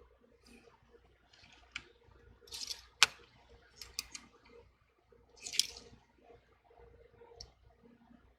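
Small clicks and taps of tools and phone parts being handled during reassembly of a smartphone, with a sharp click about three seconds in and two brief rustling scrapes around it.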